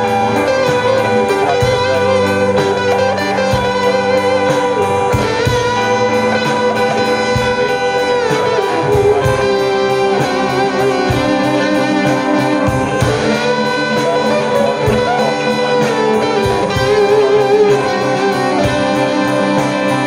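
Indie rock band playing live, with electric guitar over bass and drums.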